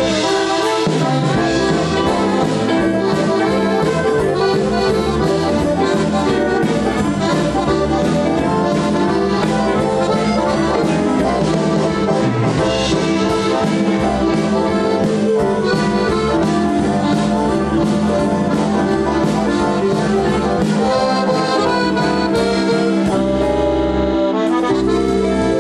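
Live folk band playing an instrumental tune: two piano accordions lead, with keyboards and guitar behind them. The tune comes to a tight ending near the end.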